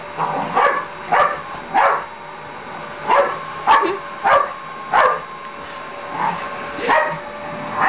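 Staffordshire bull terrier barking in short, sharp barks, about ten of them in irregular bursts with a brief pause past the middle, over the steady running of a vacuum cleaner.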